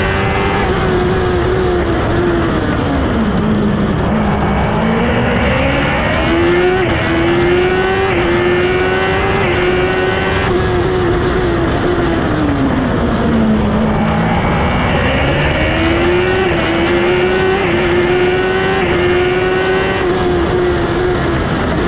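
Race car engine heard from the open cockpit at speed. The revs fall twice as the car slows hard for cone chicanes, then climb back through quick upshifts. Wind and road noise run underneath.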